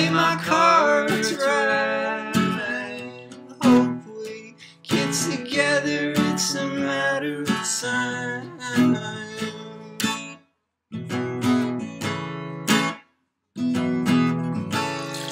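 A song played on strummed acoustic guitar, with a sung voice in places. The music cuts out abruptly twice for a moment, about two-thirds of the way through and again a couple of seconds later.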